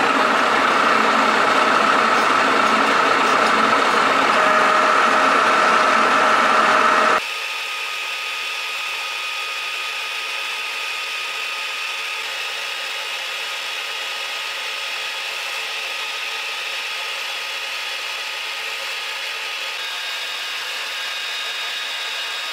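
Metal lathe running while a 42 mm carbide hole saw in the tailstock chuck cuts a hole in a spinning metal disc, a loud steady cutting sound with a high ringing tone. About seven seconds in it drops abruptly to a quieter, thinner steady whine with several high tones.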